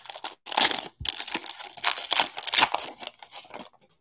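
Wrapper of a Donruss football trading-card pack being torn open and crinkled by hand: a dense, irregular crackling that stops shortly before the end.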